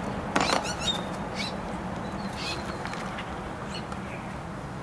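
Birds chirping in short calls, the loudest about half a second in and a few more scattered through, over a steady low hum.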